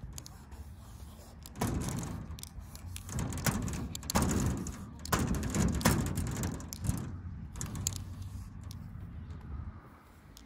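Thick black marker dragged across galvanized sheet metal, writing a tag: several short scratchy strokes over a low steady rumble, starting about a second and a half in and stopping about two seconds before the end.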